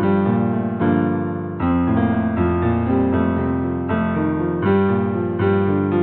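Instrumental piano music: chords and notes struck roughly every second and left to ring.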